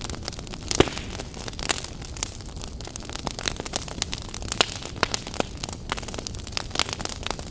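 Wood fire burning in a fireplace: a steady hiss with irregular crackles and sharp pops, one louder pop about a second in.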